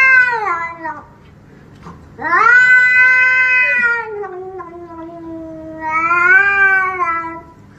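Grey shorthair cat yowling loudly as a hand reaches over to pet it. One drawn-out call tails off in the first second; a second long yowl starts about two seconds in, drops lower partway through, swells again and stops shortly before the end.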